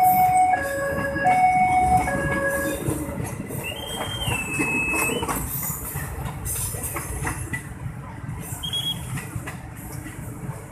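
Passenger train coaches rolling over a level crossing, wheels clicking over the rail joints. The crossing's two-tone electronic warning alarm alternates until about three seconds in. A brief high wheel squeal comes about four seconds in, and the train noise fades as the last coach passes.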